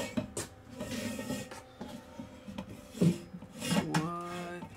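IKEA metal curtain rod being slid through its wall-mounted brackets: scraping and rubbing of the rod against the brackets, with a few sharp knocks as it is pushed and seated.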